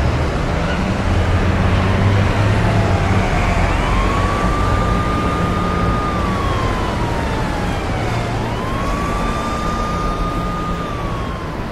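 A siren wailing: a single tone rises, holds high for a couple of seconds, then slides slowly down, twice over. Under it is a steady low rumble of engines and road noise.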